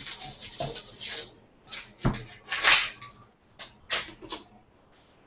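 Food-prep handling at a cutting board: a string of short rustling scrapes and one sharp knock about two seconds in, as an onion is handled for chopping. The sounds stop about a second before the end.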